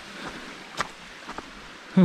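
Footsteps on a leaf-littered mountain dirt path, a few soft crunches, over a steady rushing hiss.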